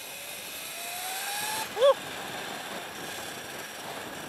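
Sur-Ron electric dirt bike's motor whining and rising in pitch as the bike accelerates, over steady road and wind noise. About two seconds in there is a brief, loud chirp-like sound that rises and falls in pitch.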